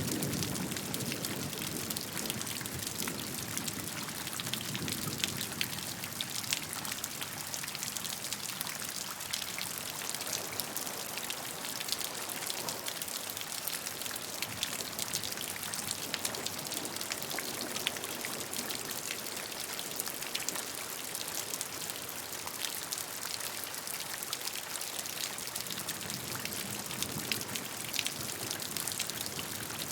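Steady rainfall: a dense, even hiss of drops with many individual drop ticks, a little heavier in the low end at the start.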